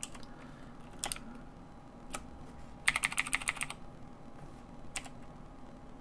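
Clicks and key taps on a computer keyboard and mouse. Single clicks come about a second apart, then a quick run of about ten clicks lasting under a second, a little before the middle.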